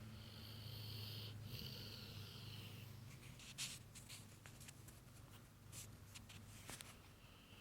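Faint breathing of a sleeping dog: two long, hissy breaths with a low rumble under them in the first few seconds, then scattered light scratching and clicking sounds.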